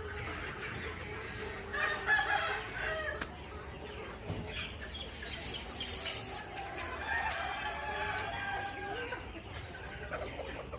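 Ayam kampung (Indonesian free-range native chickens): a rooster crowing, with clucking, in calls about two seconds in and again from about seven seconds in.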